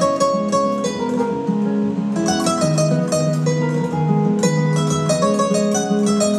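Background music led by a plucked string instrument, a quick run of notes over a steady bass line.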